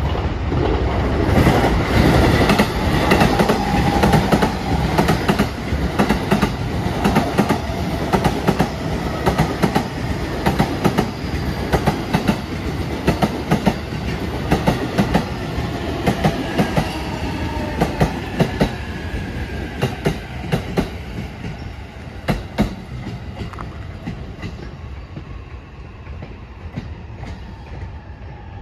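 JR Utsunomiya Line electric commuter train entering the station at low speed, its wheels clacking over the rail joints in a long run of sharp clicks over a steady rumble. The clacks are loudest in the first half and thin out and fade as the train moves away.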